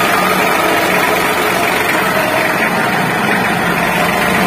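Mitsubishi L300 manual transmission making a steady, rough rumbling noise with the engine idling in neutral and the clutch pedal released. The mechanic traces the rumble to damaged, loose damper springs on the clutch disc.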